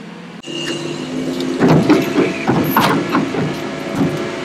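Mobile crane's engine running steadily under load as it lifts a boat hull, with irregular knocks over it. The sound starts abruptly about half a second in.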